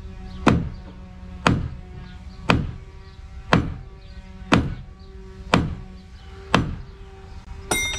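Hammer blows on the new wooden keel of a schooner being refitted, a steady rhythm of about one sharp strike a second, eight in all, each ringing briefly.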